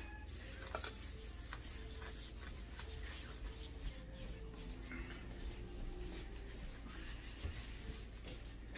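Faint rubbing and soft crinkling as gloved hands work dry seasoning into raw pork spare ribs on a plastic-lined plate, with scattered small clicks over a low steady hum.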